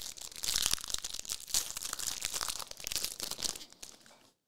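Foil trading-card pack wrapper being torn open and crinkled in the hands, a dense crackling that stops abruptly near the end.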